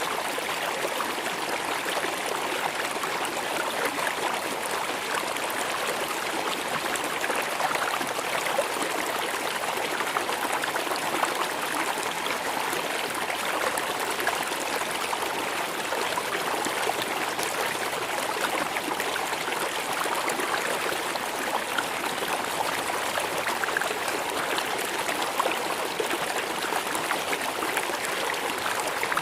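River water rushing and splashing over stones: a steady, even flow with a little trickling and gurgling.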